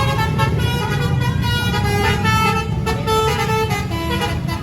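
A bus's Basuri telolet multi-tone air horn playing a melody, with its notes changing every fraction of a second, over the low rumble of the bus engine.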